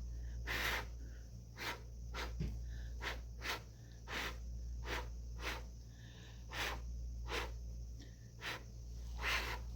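Short, forceful puffs of breath blown by mouth across wet acrylic paint, about fifteen in irregular succession, to spread the pour into a beach-wave pattern and open cells.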